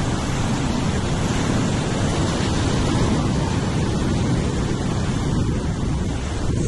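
Heavy ocean surf breaking and washing over sea rocks, a steady rushing roar, with wind buffeting the microphone.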